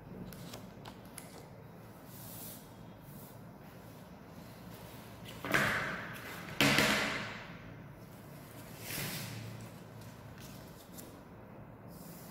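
Sheets of paper handled on a tabletop: two sharp rustles about five and a half and six and a half seconds in, each fading over about a second, and a softer one near nine seconds.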